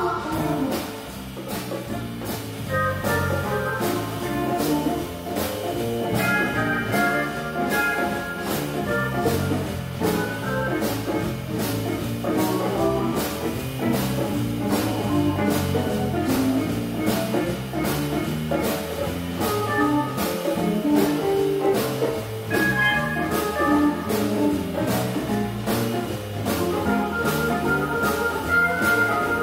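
Jazz big band playing a blues, with horns over a walking low line and a steady beat of about two strokes a second.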